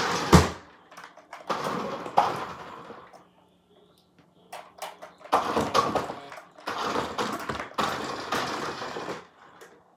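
Hot Wheels radio-controlled monster truck driving on a tile floor: its electric motor and big rubber tyres whir in a few short runs of a second or two, with a sharp knock right at the start.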